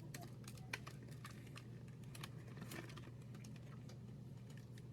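A person chewing a bite of soft, creamy chocolate pie, heard as faint, scattered, irregular mouth clicks and smacks over a steady low hum.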